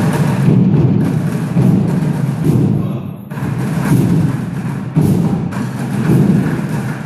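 Percussion ensemble playing, dense with heavy low drum beats, with a brief let-up about three seconds in.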